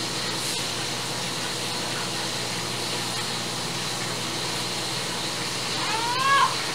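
A calico domestic cat gives one meow near the end that rises and then falls in pitch, over a steady background hiss.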